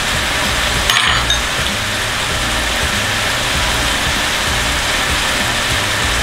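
Steady hiss with a choppy low hum underneath, and a single short click about a second in.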